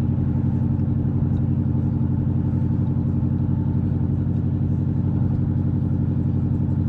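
In-cab sound of a 2013 Chrysler 300C's 5.7-litre Hemi V8, straight-piped with gutted cats and no mufflers or resonators, cruising steadily at about 50 mph. A steady low exhaust hum that holds one pitch, with road noise; at cruise it is fairly quiet.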